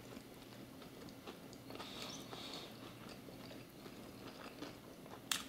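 Faint chewing of a mouthful of steak sandwich, with a single short click near the end.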